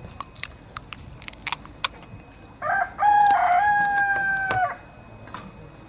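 A rooster crows once: a call of about two seconds with a short opening and then a long held note that falls slightly at the end. A few sharp clicks come before it.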